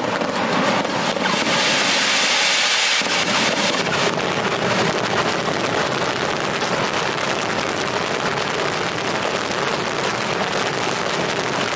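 A dense daytime barrage of firework rockets launching and bursting in rapid succession: a continuous, loud rattle of overlapping bangs and cracks that grows deeper and heavier about three seconds in.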